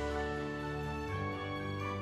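Soft background music: sustained, held instrumental notes over a steady low bass.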